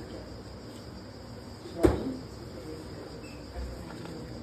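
A glossy page of a large photo book being turned by hand, with one sharp slap about two seconds in as it falls onto the facing page. A faint steady high-pitched tone continues underneath.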